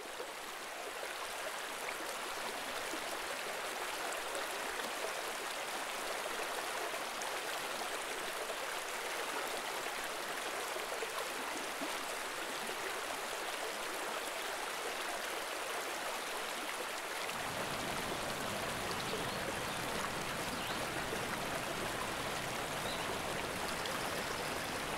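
Shallow mountain stream running over rocks: a steady rush of water that fades in at the start and grows fuller and deeper about two-thirds of the way through.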